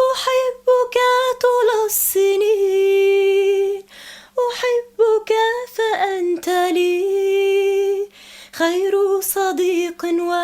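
A woman's voice singing an Arabic Christian worship hymn in a slow melody, holding long notes between short breaths.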